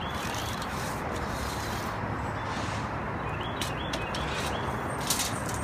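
Steady outdoor background noise with faint bird chirps. A few sharp clicks come in the second half as a steel tape measure is pulled out and handled.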